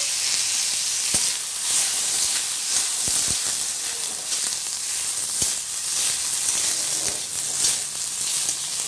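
Oil sizzling in a kadai as cashews, dried red chillies and tomato halves fry, stirred with a spatula. A steady hiss with a few sharp knocks of the spatula against the pan.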